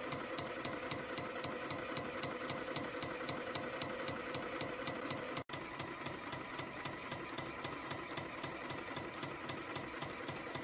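CNC spring coiling machine running, feeding and coiling 0.6 mm wire into compression springs: an even, rapid clatter of about four to five clicks a second over a steady mechanical whine. The sound drops out for an instant about halfway.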